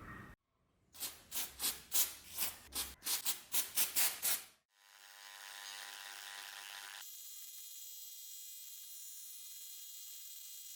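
Hand rubbing strokes on a rusty steel knife blade being cleaned, about a dozen quick back-and-forth strokes that speed up a little. A steady hum of several held tones follows in the second half.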